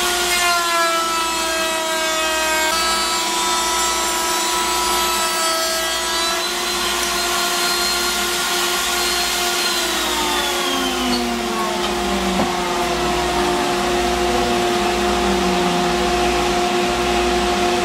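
Table-mounted router cutting a decorative profile along the edge of a long board, its pitch dipping as the bit takes the wood; about ten seconds in the router is switched off and winds down in pitch. A dust collector runs steadily underneath.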